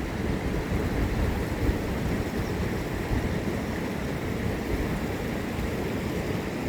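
Heavy rain falling, a steady rushing noise.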